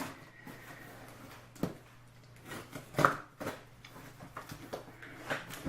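A taped cardboard shipping box being handled and worked open: a string of separate knocks and scrapes, the loudest about three seconds in.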